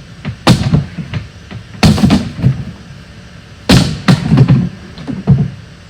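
Wooden furniture being bashed apart to knock its back panel out: a string of loud knocks and thuds with rattling wood, the heaviest blows a second or two apart.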